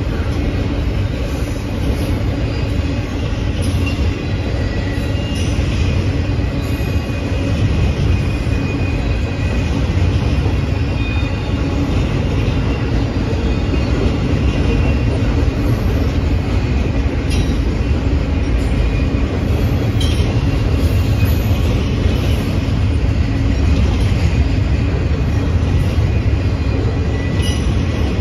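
Double-stack intermodal container train rolling past: a steady, loud rumble of steel wheels on the rails, with faint on-and-off wheel squeal and a few sharp clicks from the trucks.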